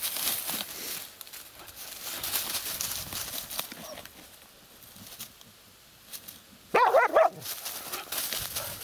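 Hunting laikas scrabbling and digging in a heap of dry reeds, with a crackle and rustle of stems for the first few seconds. About seven seconds in, one dog gives a brief, loud, wavering bark.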